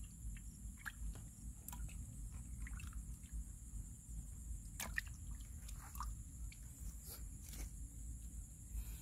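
A hand groping in wet mud at the bottom of a dug hole: scattered soft squelches and small wet clicks, over a steady low rumble.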